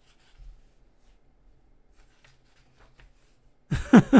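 A quiet room with a few faint light clicks and rustles. Near the end a person's voice comes in with a few short syllables that fall in pitch.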